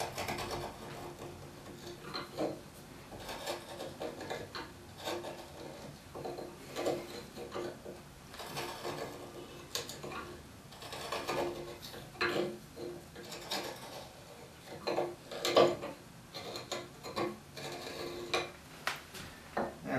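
Hand knife paring wood in short, irregular scraping strokes, trimming the shoulder of a turned knob's tenon down to a pencil line so that no raw tenon shows.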